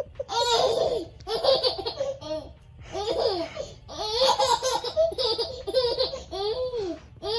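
A baby laughing in about seven short bouts, each a high-pitched peal that rises and falls.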